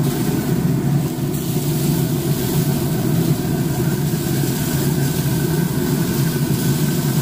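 Traeger pellet grill running with its lid open: a steady mechanical hum.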